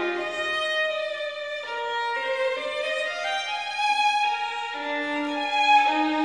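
Background music played on violin, several held notes changing about once a second.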